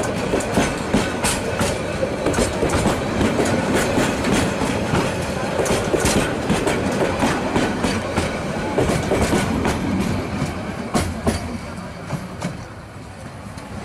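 Wheels of the Mohua Express's crowded passenger coaches clattering over the rail joints as the train rolls past close by, with a quick run of clicks and knocks. The sound fades near the end as the last coach moves away.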